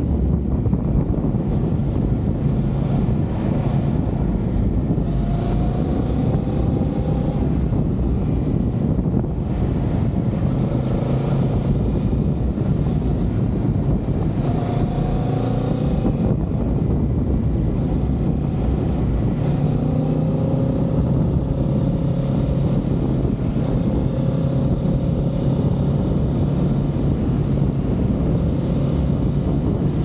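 Kawasaki Z650 parallel-twin motorcycle engine running while riding, its pitch slowly rising and falling with speed, under steady wind noise on the microphone.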